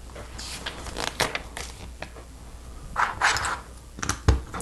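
Plastic Lego bricks being handled and pressed together: a series of small clicks and scrapes, a short rustling scrape about three seconds in, and a sharp snap as a piece is pushed onto the chassis near the end.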